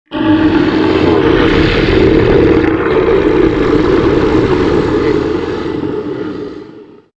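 Godzilla Jr. roar sound effect: one long roar held for about seven seconds, starting abruptly and fading out near the end.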